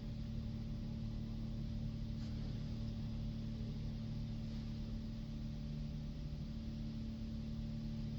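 Steady low mechanical drone with several held tones, unchanging throughout.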